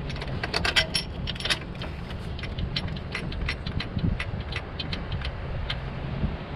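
Irregular metallic clicks and clinks as the starter's long upper mounting bolt is fitted and turned, thickest in the first second and a half and scattered after, over a steady low hum.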